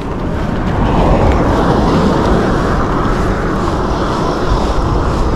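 Wind rushing over the microphone of a chest-mounted camera as a mountain bike rolls at speed. It builds over the first second, then holds steady.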